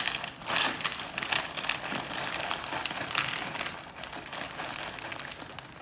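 Plastic cereal bag liner crinkling as it is handled, an irregular run of crackles.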